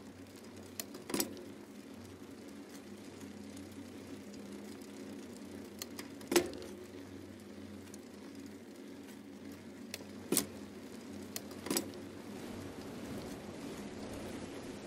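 Bicycle riding at night: a steady rolling rumble with four short, sharp rattles, the loudest about halfway through.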